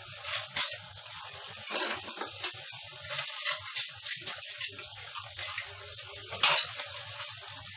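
Tap water running into a kitchen sink while dishes are washed by hand, with scattered clinks and knocks of crockery; the loudest clatter comes near the end.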